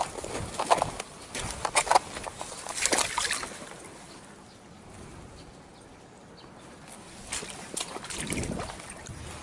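Footsteps pushing through dry brush: twigs and branches crack and rustle in a run of sharp snaps, go quiet for a few seconds, then snap a few more times near the end.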